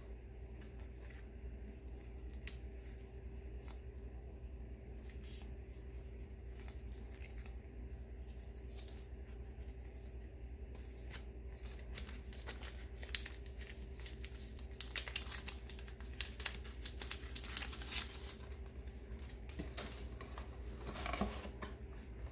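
Hands handling paper and plastic packaging: scattered rustling, crinkling and light taps, getting busier about halfway through, with a denser crinkle of plastic near the end. A faint steady hum runs underneath.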